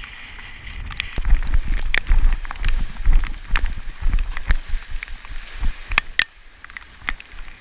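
Water splashing and rushing against a kayak's hull and paddle as it runs on a small wave, with irregular sharp splashes over a low rumble of wind buffeting the microphone, loudest from about a second in until about five seconds.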